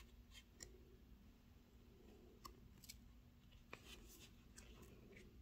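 Near silence with a few faint paper clicks and rustles as the sheets of a large sticker book are handled and turned.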